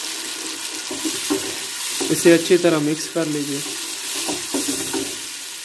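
Wooden spoon stirring and scraping around a pot of onions and tomato paste frying in oil, over a steady sizzle.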